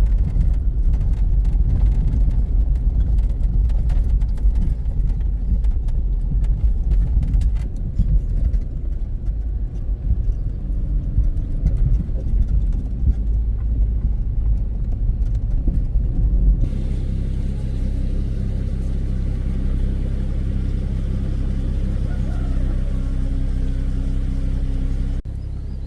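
Car on the move: a steady low rumble of engine and road noise. About two-thirds of the way through it changes abruptly to a smoother, steadier engine hum.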